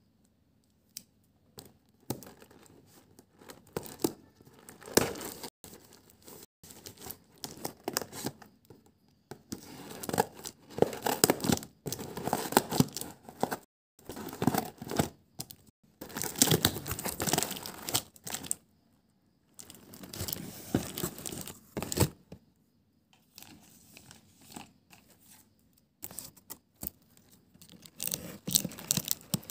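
Scissors cutting along the packing tape of a cardboard parcel, with the tape and cardboard tearing open in irregular bursts and short pauses. Near the end, shredded kraft-paper packing filler crinkles as the box is opened.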